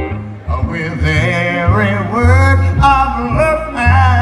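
A man singing a slow jazz-pop ballad live, held notes gliding in pitch, over an upright double bass plucking low notes and an electric guitar.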